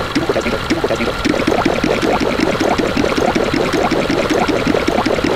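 Cacophony of many video clips' soundtracks layered at once, blending into a dense run of short pitched blips, several a second, over a steady hiss.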